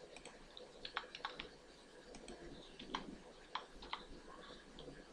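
Faint keystrokes on a computer keyboard as numbers are typed, coming as short clusters of a few quick taps and then single taps.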